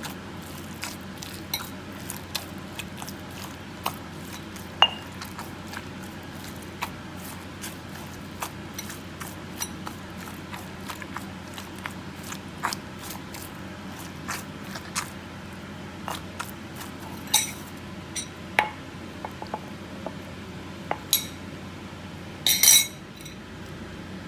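Light, irregular clinks and taps of kitchen utensils against cookware and dishes, with a few louder clatters near the end.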